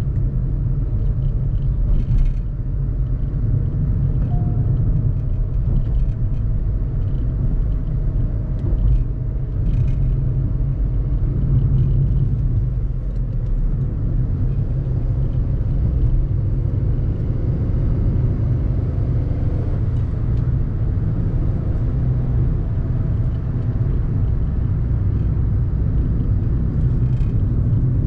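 Inside the cabin of a moving Volkswagen Fox: its 1.2-litre three-cylinder petrol engine runs steadily over a deep road and tyre rumble. A few faint knocks come through at intervals.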